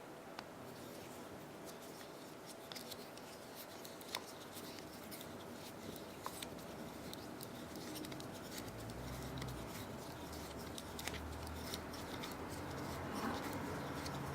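Faint clicks and small metallic scrapes of a Torx key working at the small screws of a folding knife, with a couple of sharper ticks. A low hum comes in after about eight seconds.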